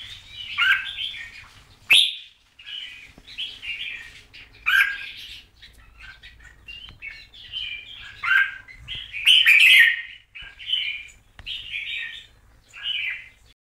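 Red-whiskered bulbul singing a run of short phrases, about one a second, some much louder than others.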